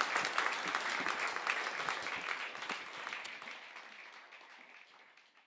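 Small studio audience applauding. The claps thin out and fade away over the second half.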